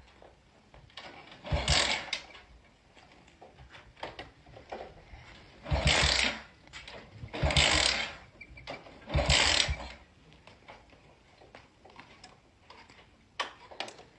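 A Honda engine being turned over in four short tries of about a second each, with rapid chugging pulses, without catching: it won't start.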